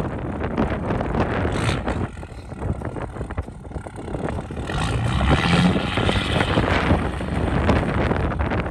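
Straight-piped 5.9 Cummins diesel truck engine running, with wind buffeting the microphone. It eases off about two seconds in, then gets louder and revs up from about five seconds in.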